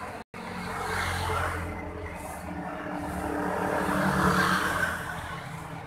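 Road traffic passing on a wet street: a motor scooter's engine and tyres swell and pass about four seconds in, after a lesser vehicle pass about a second in. The sound cuts out briefly just after the start.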